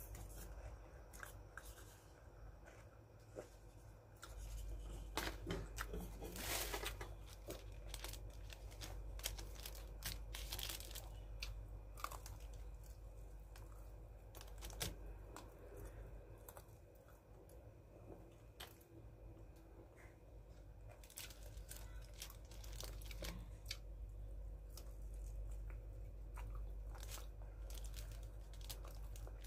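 Close-up eating sounds of crispy fried chicken: the crust crunching and the meat being torn apart and chewed, with many small clicks and smacks. There are a couple of louder crinkling stretches of the paper wrapping about a third of the way in, over a steady low hum.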